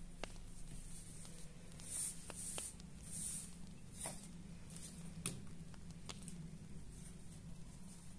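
Faint handling sounds of cross-stitching: embroidery thread drawn through the stitching fabric with a few soft hisses, then small clicks of scissors being picked up, used and set down on the table, over a low steady hum.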